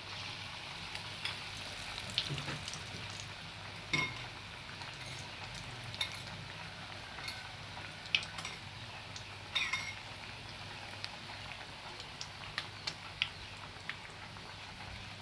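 Flour-battered broccoli florets frying in hot oil with a steady sizzle, and a utensil clicking against the pan every second or two as the pieces are stirred.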